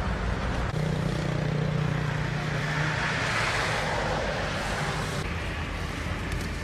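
Road traffic: a vehicle passing on the highway, its tyre and engine noise swelling to a peak midway and then fading away.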